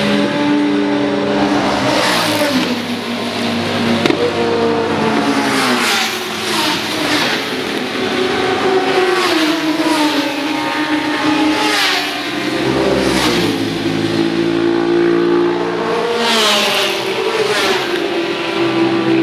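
Several supersport motorcycles with open race exhausts passing one after another, their engines repeatedly rising and falling in pitch, with overlapping engine notes as they take a bend.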